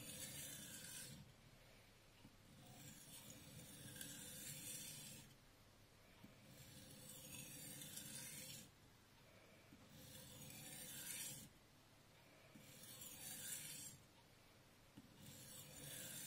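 Steel knife blade (a VG10 Damascus nakiri) stroked along a whetstone: a faint gritty hiss with each stroke, about six long strokes a couple of seconds apart.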